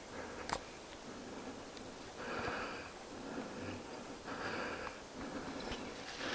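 Two audible breaths or sniffs, each under a second long and about two seconds apart, with a few faint twig clicks.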